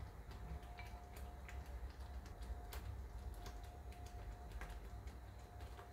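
Faint, irregular clicks and taps of a spatula and a ceramic bowl knocking against a nonstick pan as thick curry is scooped out, with a faint steady hum underneath.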